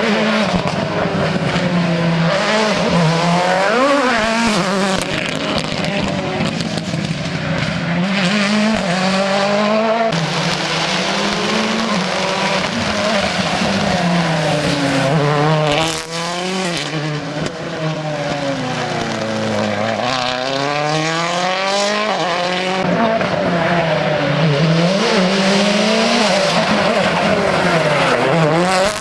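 Rally cars driven hard on a special stage: engines revving high and dropping back repeatedly through gear changes and corners, with tyres squealing.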